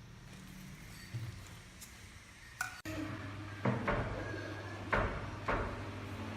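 A few sharp knocks, four in under two seconds, over a low steady hum that starts suddenly about three seconds in.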